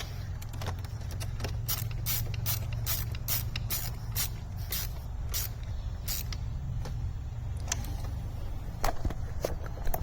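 Ratchet wrench clicking as 10 mm nuts at the battery are tightened down. A quick run of sharp clicks thins out after about six seconds, over a steady low hum.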